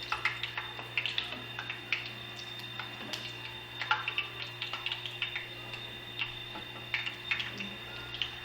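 Wheat-flour fritters frying in hot fat in a pan: the oil crackles and pops at irregular intervals over a steady low hum.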